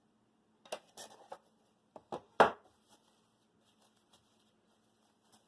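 Handling noise from collectible Zippo lighters and their packaging: a few light clicks and knocks, the loudest about two and a half seconds in.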